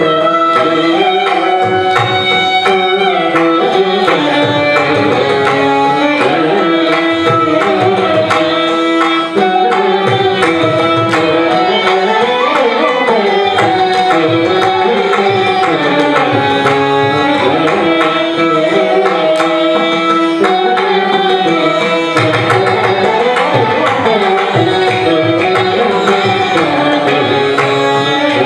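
Carnatic instrumental ensemble: flute, violin and chitravina play a melody together with sliding, ornamented notes, over a steady pattern of mridangam strokes.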